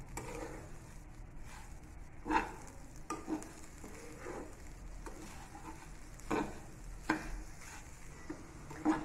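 Metal spatula stirring grated coconut and sugar in a non-stick pan as it dry-roasts on low flame. A soft continuous scraping and shuffling, with a few sharper scrapes or taps against the pan; the clearest come about two and a half and six and a half seconds in.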